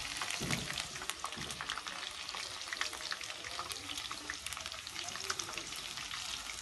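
Stuffed okra sizzling and crackling steadily in hot oil in a steel kadai, stirred with a wire mesh strainer.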